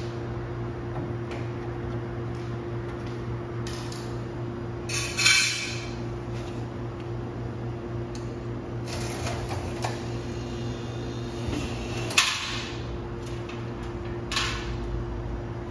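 A steady low electrical hum runs throughout, with a few scrapes and knocks of parts being handled on a refrigerator under repair: the loudest about five seconds in, and a sharp click about twelve seconds in.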